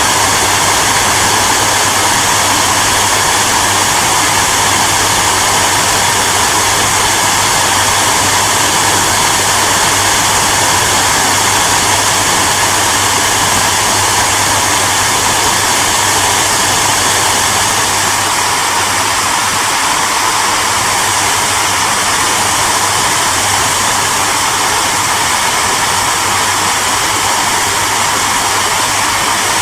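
Hair dryer running steadily, a constant loud blowing rush with a low hum under it.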